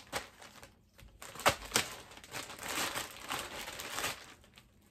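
Plastic packaging crinkling and rustling as plastic mailer bags are handled, with two sharp crackles about a second and a half in and steady crinkling after.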